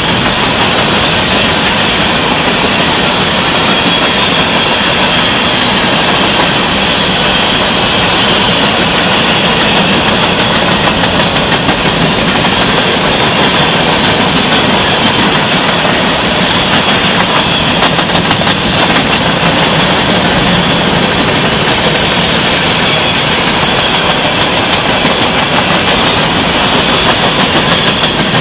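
Covered hopper cars of a freight train rolling past close by: a steady loud roar of steel wheels on the rails, with clicks of wheels passing over rail joints.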